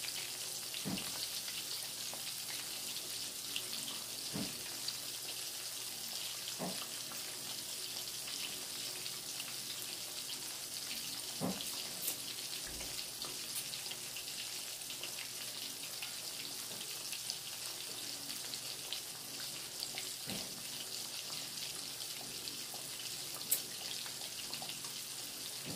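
Oil sizzling steadily around two breaded chicken cordon bleu rolls deep-frying in a pan over low heat, with an occasional small pop or crackle.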